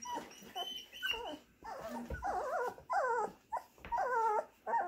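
Three-week-old puppies whining and yipping: a run of short, wavering, squeaky cries, about one or two a second, that grow longer and louder in the second half.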